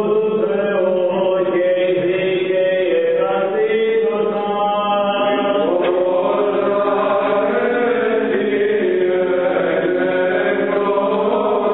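Greek Orthodox Byzantine chant: voices sing a slow melody over a steady held drone (the ison). The melody shifts about six seconds in.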